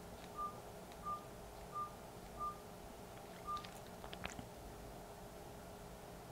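Nokia 3310 (2017) keypad tones: five short, single-pitched beeps, the first four evenly spaced, as buttons are pressed, followed by a few small clicks about four seconds in.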